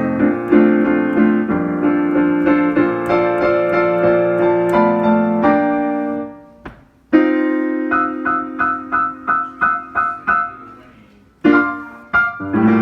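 Piano playing chords and melody. The music dies away about six seconds in, then comes back with a run of quick repeated chords over held low notes. After a short fade, a few final chords are struck near the end.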